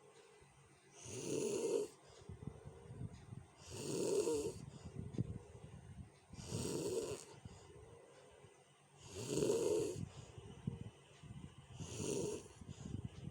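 A person snoring loudly and roughly, five snoring breaths about every two and a half to three seconds, each a coarse rattle with a hissing rush of air.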